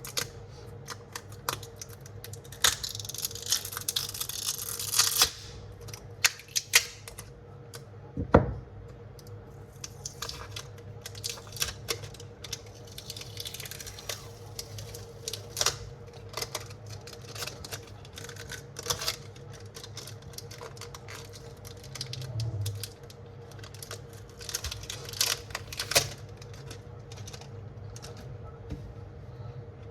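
Repair tools clicking, tapping and scraping against a smartphone while its battery is taken out, with a longer scratchy scraping stretch a few seconds in. A faint steady hum runs underneath.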